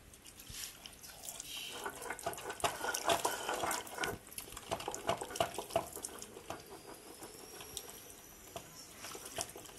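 A stone hand grinder rubbed back and forth over a wet grinding stone, crushing seed paste with water. It makes irregular wet scraping and clicking strokes that are busiest in the middle and ease off after about six seconds.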